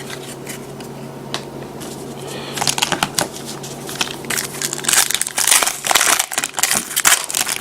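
Foil wrapper of a trading-card pack crinkling as it is torn open and handled, the crinkling heavier and denser in the second half, over a steady low hum.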